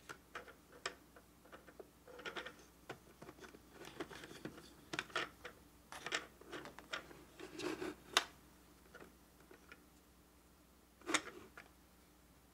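Fingers handling the plastic Lovely Lamb toy manual sewing machine while threading it: irregular light clicks, taps and scratchy rustles of thread and plastic, with one sharper click near the end.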